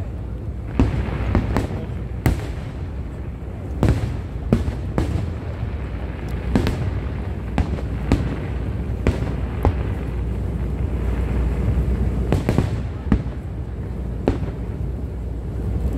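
Fireworks display: shells bursting in an irregular run of sharp bangs, about one a second, over a steady low rumble.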